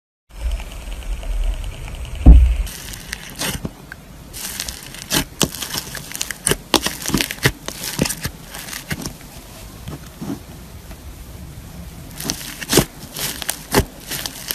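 Fingers pressing and squishing into slime packed with tiny foam beads, giving irregular crackling and popping clicks that come thickest in two spells. A dull bump about two seconds in is the loudest sound.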